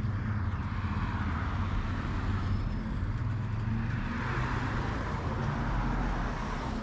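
Steady wind rush and tyre rumble from riding a mountain bike, heard through a helmet-mounted action camera.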